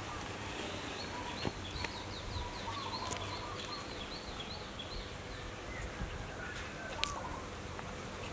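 Outdoor background noise with a bird chirping a quick run of short repeated notes over the first few seconds, and a few light knocks and rustles as a kitten paws through cardboard, a towel and loose wire; the sharpest knock comes about seven seconds in.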